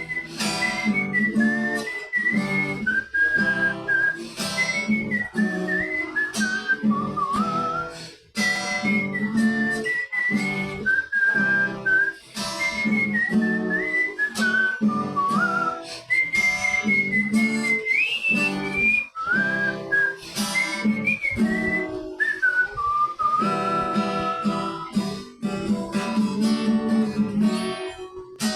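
Acoustic guitar plucked and strummed in a steady rhythm while a person whistles the melody over it.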